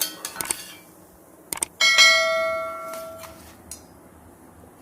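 A few light clicks of kitchen utensils, then a metal kitchen vessel or utensil struck once about two seconds in. It rings with several clear tones like a small bell and fades over about a second and a half.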